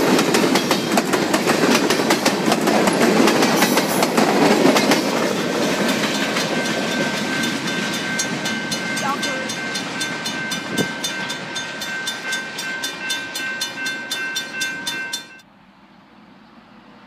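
Freight cars rolling past over the rails with wheels clacking, fading as the train moves away. A grade-crossing bell rings steadily and comes through clearer as the train recedes. The sound cuts off suddenly near the end, leaving only faint outdoor background.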